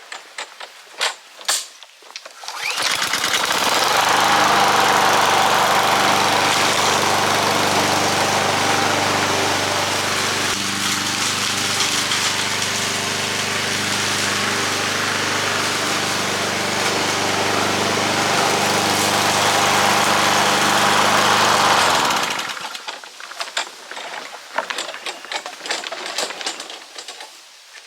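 Small gasoline lawnmower engine starting a couple of seconds in, running steadily while cutting long grass for about twenty seconds, then shutting off.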